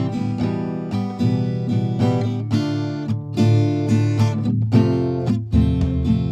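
Background music: acoustic guitar strummed and picked in a steady rhythm.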